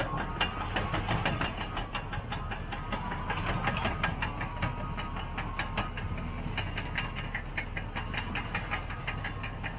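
Caterpillar D6T XL crawler dozer's diesel engine running under load as it pushes through brush, with a rapid clatter of clicks and clanks from its steel tracks over a steady low rumble.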